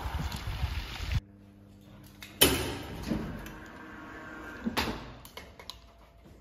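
Waves washing onto a pebble beach with wind on the microphone, cut off about a second in. Then the metal mesh gate of an old cage lift clangs shut, followed a couple of seconds later by a second clank and a few light clicks, over a faint steady hum.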